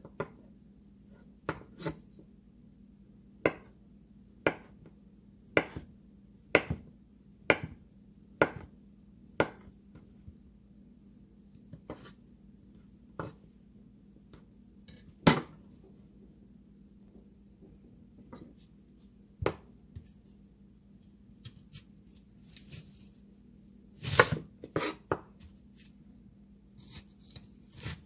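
Kitchen knife chopping on a cutting board in slow single strokes, about one a second, with a quick flurry of louder cuts near the end.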